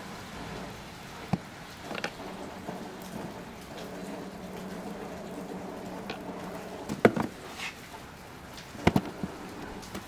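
Hard plastic battery cover and screwdriver clicking and knocking as the cover is pried loose and lifted off the battery compartment, with two louder clusters of knocks in the second half, over a steady low hum.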